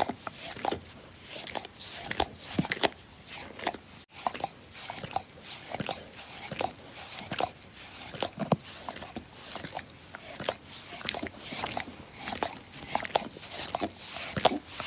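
A dog licking: a steady run of irregular wet smacking clicks, several a second, with a brief break about four seconds in.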